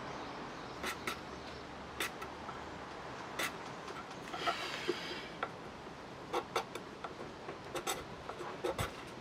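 Small knife blade shaving and scraping a bamboo rod section, giving irregular sharp clicks as the blade catches and bites. There is a longer scrape about halfway through.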